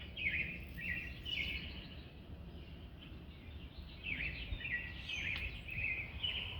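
A songbird singing in two bouts of quick, repeated short downward-sliding chirps, over a low background rumble.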